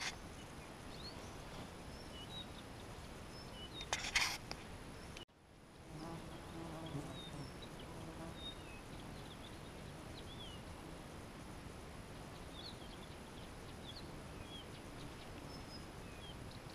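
Quiet riverbank ambience: soft steady background noise with scattered small bird chirps. There is a brief rustle about four seconds in, and a faint insect buzz passes from about six to eight seconds.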